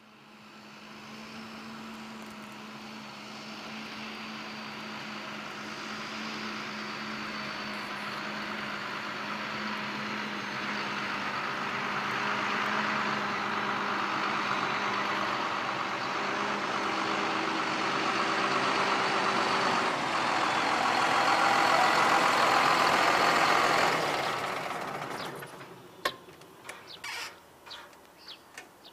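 John Deere tractor's diesel engine running as the tractor drives up, growing steadily louder as it nears, then falling away about 25 seconds in as it is shut down. A few clicks and knocks follow near the end as the cab door opens and the driver climbs down.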